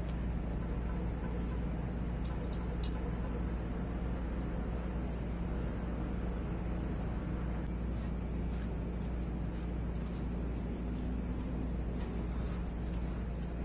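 A cricket trilling steadily at a high pitch over a constant low hum, with a few faint clicks.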